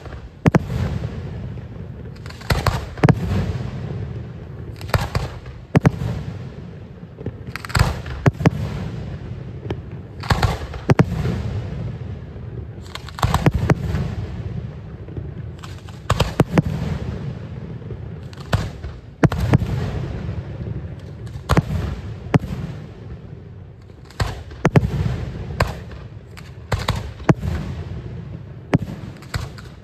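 Fireworks display: shells bursting in steady succession, a sharp bang every second or two, with a low rumble trailing between them.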